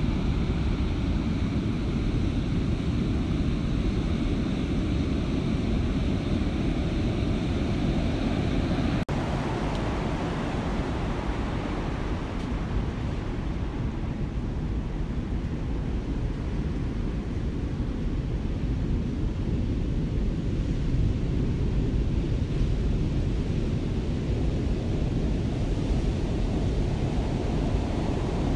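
Steady low rush of heavy ocean surf mixed with wind noise. There is a brief dip about nine seconds in, and the sound is duller after it.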